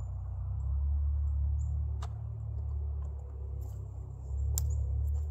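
A steady low rumble of wind on the microphone, with three sharp metallic clicks from a Ballard single-shot rifle being loaded and readied. One click comes about two seconds in and two come close together near the end.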